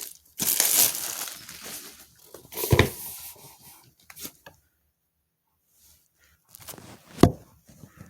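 Rustling and handling of a cardboard card-game bundle box being unpacked: a stretch of rustling at the start, a knock a little before the middle, a silent pause, then light clicks and another knock near the end.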